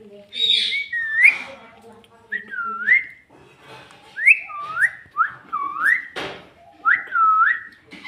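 A run of about six whistled notes, each dipping in pitch then sliding back up, with a short sharp noise about six seconds in.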